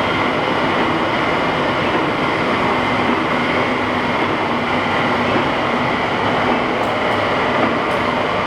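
National LB32-120 hollow-spindle oil-field lathe running under power, a steady mechanical drone from its geared headstock and drive with a faint steady high tone.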